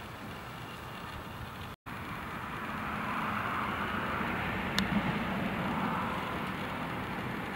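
Nissan Frontier pickup's engine idling steadily, heard from under the truck near the exhaust tailpipe. It briefly cuts out just under two seconds in, then runs a little louder, with a small click near five seconds.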